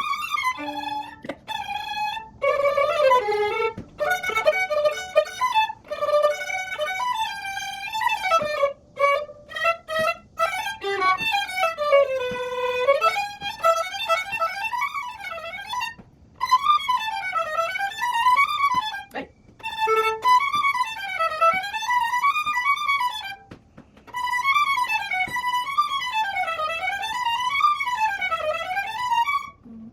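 Solo violin, unaccompanied, playing fast runs that climb and fall again and again, stopping briefly three times before going on.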